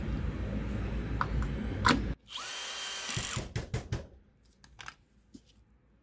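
Cordless drill-driver running, driving in the self-tapping screws that hold a mobility scooter wheel's decorative trim cover. It runs steadily, stops abruptly about two seconds in, and then makes a second short run with a rising whine. A few sharp clicks follow.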